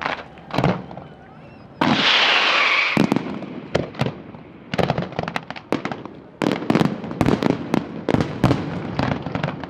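Fireworks display: a couple of sharp bangs, then a loud hissing rush about two seconds in that fades over about a second, followed by a rapid, dense series of sharp bangs and crackles from aerial shells.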